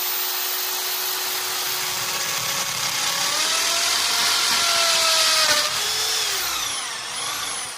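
Electric hand drill running at speed and boring into a wound roll of PVC card-printer ribbon. Its whine sags in pitch about three seconds in as the bit takes the load, then falls away as the drill winds down near the end.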